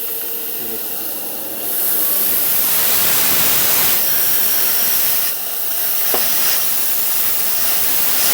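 Compressed air hissing steadily as it is blown into a Ceat tubeless motorcycle tyre through the valve stem with its core left out, to seat the tyre's bead on the rim. The hiss grows louder about two seconds in and eases a little after five seconds.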